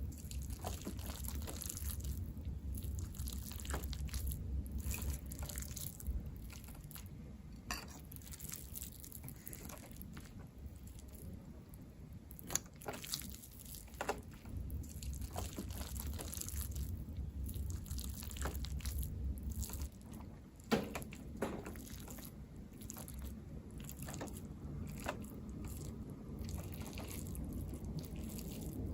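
Close-miked eating: a person chewing, with wet mouth smacks and sharp clicks scattered irregularly over a low steady rumble.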